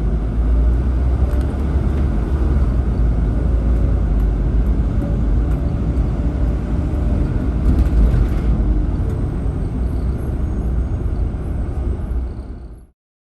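Steady low rumble of a car on the move, heard from inside the cabin: road and engine noise with no distinct events. It fades out near the end.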